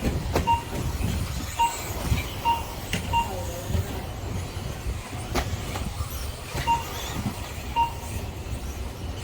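Short, identical electronic beeps, six in all and unevenly spaced, typical of an RC race's lap-timing system as cars cross the timing line, over a steady low rumble, with a few sharp knocks.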